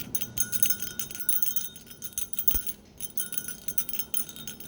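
A jingle bell ornament shaken in two bouts of rapid, bright jingling, with a short pause between them.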